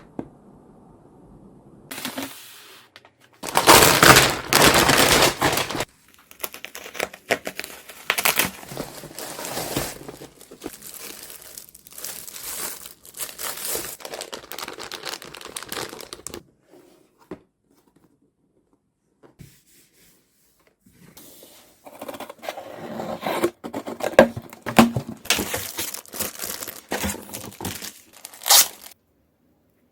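Packaging of a boxed keyboard being opened: paper and plastic wrapping torn and crinkled in irregular rustling bursts, with a few seconds' pause about halfway through.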